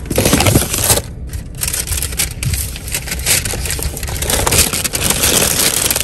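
Brown paper bag and paper pastry wrappers rustling and crinkling as a hand rummages through them, on and off.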